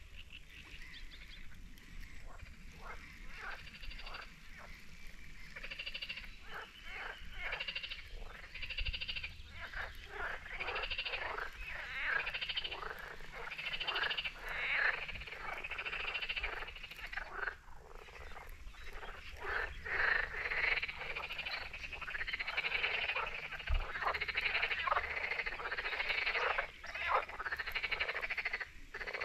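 A chorus of frogs croaking, many short calls overlapping, thin at first and growing denser and louder about ten seconds in.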